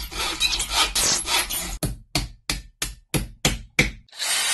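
Workshop tool sounds under an intro title: a stretch of rasping and scraping, then a run of short rasping strokes at about three a second. Near the end a steady hiss with a faint high whine starts.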